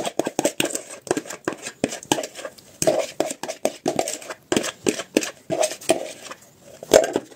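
A metal spoon clinking and scraping against mixing bowls as a kefir batter is scraped out into flour and stirred in: a quick, irregular run of taps and scrapes.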